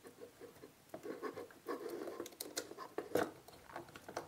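Faint scratching and clicking of a screwdriver working a terminal screw on an RCBO while copper wires are handled, with a few sharper clicks about two to three seconds in.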